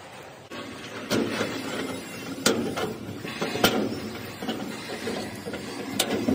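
Mechanical handling noise from door lock hardware being fitted: a run of scraping and rattling, broken by a few sharp clicks, starting about half a second in.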